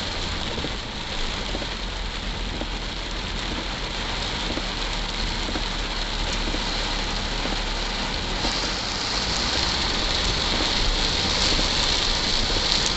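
Rain falling steadily, a dense hiss that grows a little louder and brighter about two-thirds of the way in.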